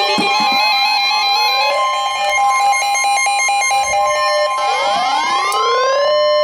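Emergency Alert System attention tone, a steady two-note alarm near 1 kHz, heard with music that repeats rising, sweeping tones.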